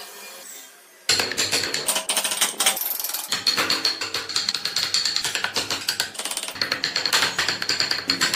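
Hand chisel cutting into a block of wood: a fast, dense run of sharp clicks and cracks as chips split off, starting about a second in.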